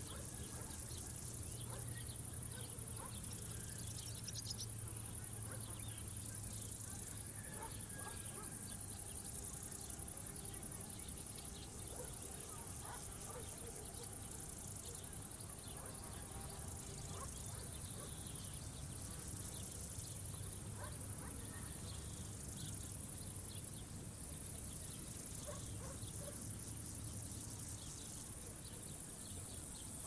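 Crickets or grasshoppers stridulating in a field: a steady high-pitched insect trill that stops and starts every few seconds, with a louder high-pitched insect sound joining near the end.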